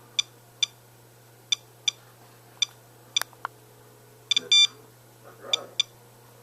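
Geiger counter beeping in short, irregularly spaced chirps, about ten in six seconds, each beep one detected radiation count. A couple of longer beeps come together just past the middle, and there is a light click about halfway through.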